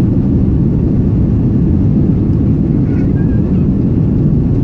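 Steady low rumble inside the cabin of an Airbus A330 jet airliner rolling along the ground with its engines running, heard from a seat over the wing.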